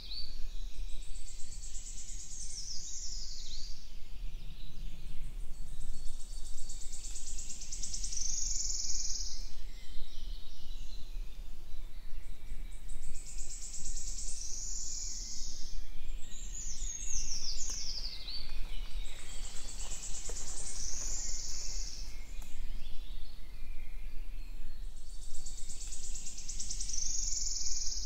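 Woodland songbirds singing: short high phrases, some falling in pitch, come back every few seconds over a steady low background noise.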